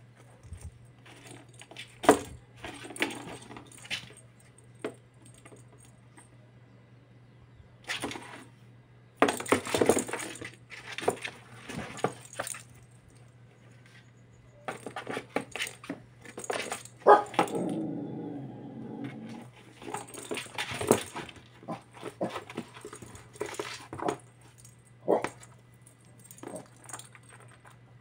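A kitten batting a small hollow plastic ball around a cardboard box: irregular rattling clicks and knocks of the ball and scrabbling on the cardboard, with quiet gaps between bouts. A little past halfway a drawn-out whining animal call lasts about two seconds.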